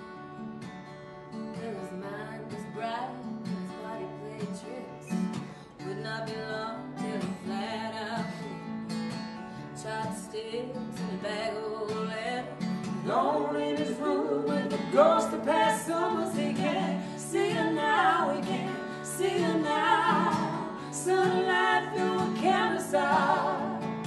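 Acoustic guitar strumming under a woman's singing voice, with the music growing louder about halfway through.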